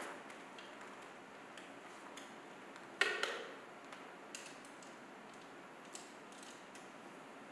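Small clicks and taps of metal parts being handled while a table's metal support frame is fitted to a wooden leg, with one louder ringing metal clink about three seconds in that dies away over about half a second.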